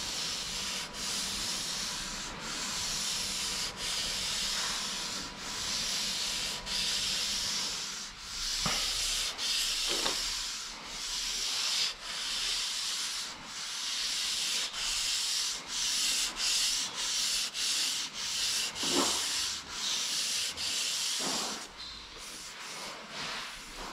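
Hand sanding of body filler on a car panel: sandpaper rubbing back and forth in slow, even strokes that quicken in the second half, shaping a rounded contour.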